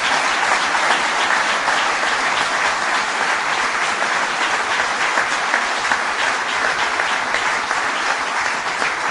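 A large audience applauding, many hands clapping at an even, steady level.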